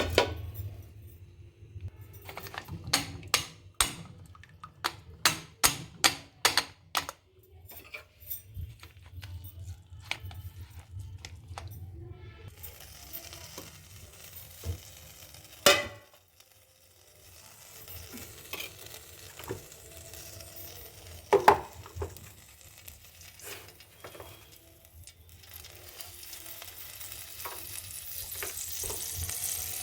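Food frying in a pan and being stirred, with a series of sharp knocks of utensil on pan in the first several seconds. The sizzle builds and grows louder toward the end, with a few more single knocks.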